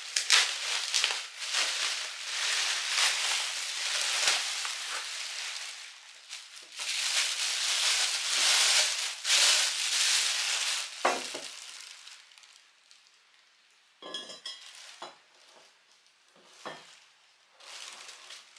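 Bubble wrap crinkling and rustling loudly as it is pulled off a saucepan. After about twelve seconds it dies down to a few light knocks and a short ringing clink as the enamelled pot and lid are handled on the table.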